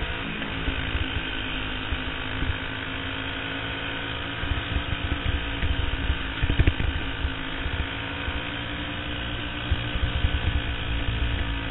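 Champ kart's engine running hard with little change in pitch through the corners, heard onboard, with wind buffeting and rumble on the microphone that is strongest about six to seven seconds in.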